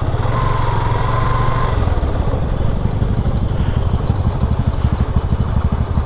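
Motorcycle engine running steadily at low revs as the bike rolls slowly and comes up to a stop.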